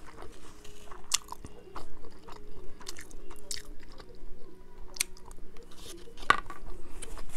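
Close-miked chewing and mouth sounds of a child eating fried rice, with scattered wet smacks and clicks.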